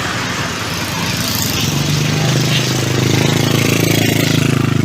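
Large intercity bus on the road, with traffic noise. A steady low drone comes up about two seconds in and grows louder about a second later.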